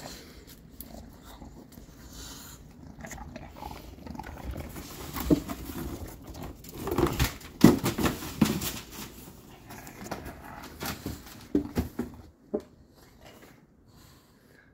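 English bulldog puppy wrestling a cardboard egg box on newspaper: cardboard scraping and paper crackling, mixed with the puppy's growls, busiest in the middle and quieting near the end as it settles.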